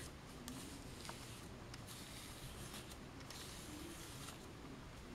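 Faint rustling and scratching of a comb and fingers working through dry hair to make a part, with a few small scrapes.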